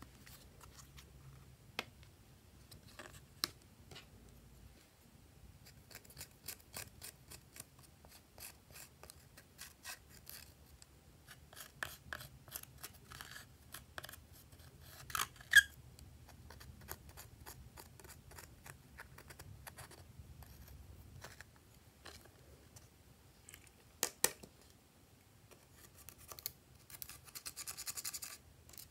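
Wooden stick scratching pressed eyeshadow powder out of a makeup palette: quick dry scraping strokes, several a second, with a few sharper clicks where it knocks the pan, and a faster, denser scrape near the end.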